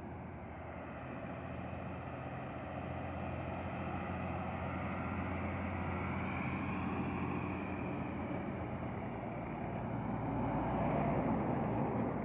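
Heavy diesel trucks driving past: a low engine drone with tyre noise on the road, swelling as each truck goes by and loudest near the end.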